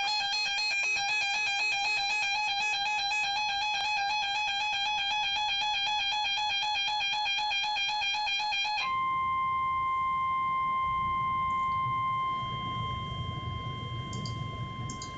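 A weather radio alerting: a rapidly warbling electronic alarm for about nine seconds, then it switches abruptly to the steady 1050 Hz NOAA Weather Radio warning tone, which holds on and drops somewhat in level about twelve seconds in. The tone signals that a warning broadcast, here a severe thunderstorm warning, is about to follow.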